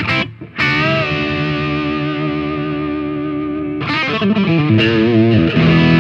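Fender Telecaster with a rosewood fingerboard played through an overdriven Marshall 6100 amp: a few short chord stabs, then a chord held ringing for about three seconds, then more strummed chords. The tone is a smoother, darker one.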